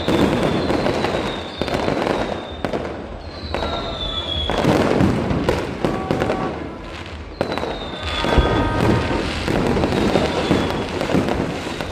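Fireworks display: a dense run of bangs and crackling bursts going off in quick succession, with several high whistles sliding slowly down in pitch.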